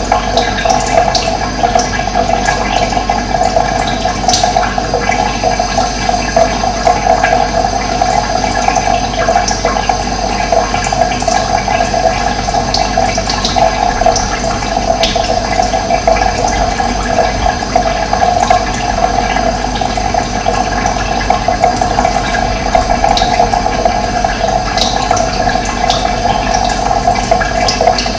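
Steady rush of running water, with short faint bird chirps now and then.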